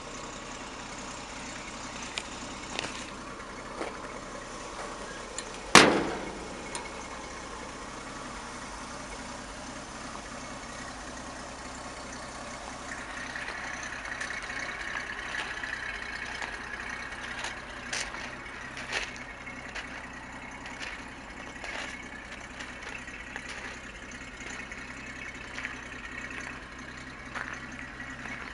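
A 1955 Chevrolet 3800 dump truck's engine idling steadily, with one loud metal slam about six seconds in as the cab door is shut.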